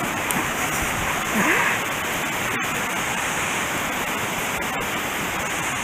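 Water rushing steadily over a dam spillway.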